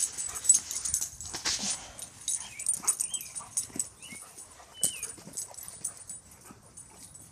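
A goldendoodle and a springer spaniel play-fighting: scuffles and bumps with short whimpers and yips. It is loudest in the first two seconds, then eases off.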